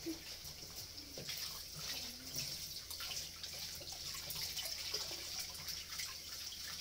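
Kitchen tap running in a steady stream, splashing over hands and into a plastic basin of water in the sink as something is rinsed under it.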